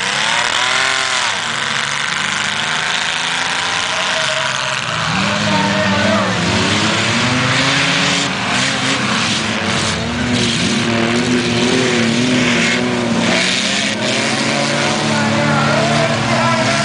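Several full-size SUVs and pickups racing on a dirt oval, their engines revving and accelerating together, the pitch rising and falling as they pass and as they throttle through the turns.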